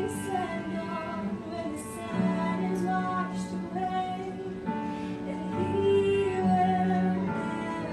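A woman singing a slow solo song over instrumental backing, holding long notes.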